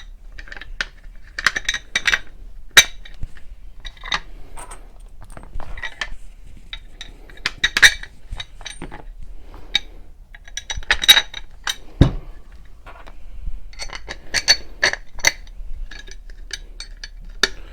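Metal screws and a metal mounting plate clinking and rattling as they are handled and fitted, many sharp ringing clicks in irregular clusters, with one duller knock about twelve seconds in.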